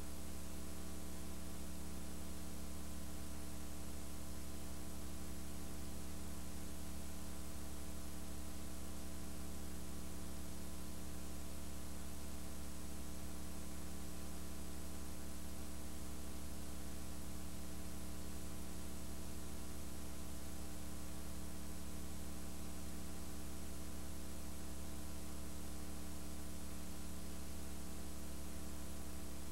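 Steady electrical mains hum with a ladder of buzzing overtones over an even hiss; no sound of the gymnastics or the arena comes through.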